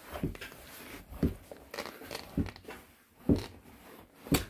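A toddler's brief grunts, about five short sounds spread over a few seconds, with the rustle of clothing rubbing on the sofa as he squirms into the gap beside it.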